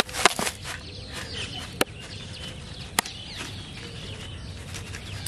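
Birds chirping and chickens clucking in the background, with three sharp clicks: the loudest just after the start, then one a little under two seconds in and one at about three seconds.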